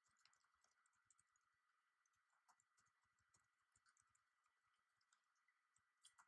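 Near silence: room tone with faint, scattered clicks and a faint steady high-pitched hum.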